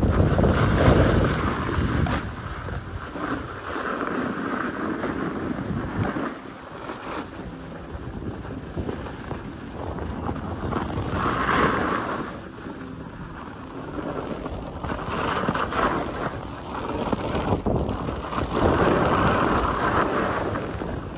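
Wind buffeting the microphone on a downhill run, with the hiss and scrape of edges sliding over packed, tracked snow that swells and fades every few seconds through the turns.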